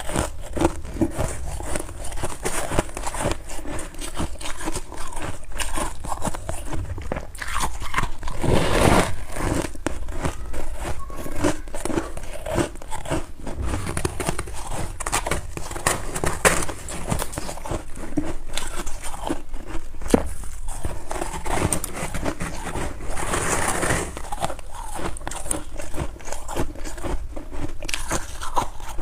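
Close-up biting and chewing of crunchy freezer frost: a dense run of crisp crunches and crackles, with a few louder bursts of crunching.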